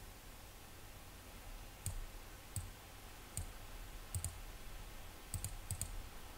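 Computer mouse buttons clicking: single clicks and quick pairs, about nine in all, starting about two seconds in, over a faint steady low hum.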